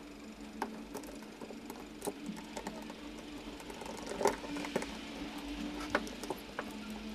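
Small scattered clicks and taps of wires, a switch and a plastic tool housing being handled while a power tool is rewired, the loudest knock about four seconds in, over a steady low hum.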